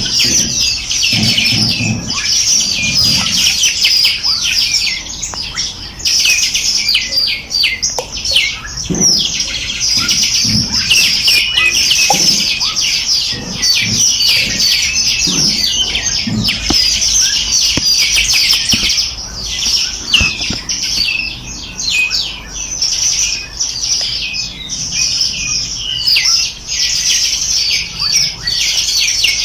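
Many small birds chirping at once in a dense, unbroken chorus of short, high calls.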